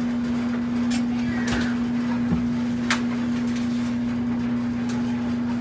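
A steady mechanical hum on one pitch runs throughout, with a few sharp crinkles and clicks as a plastic pack of green bell peppers is cut open.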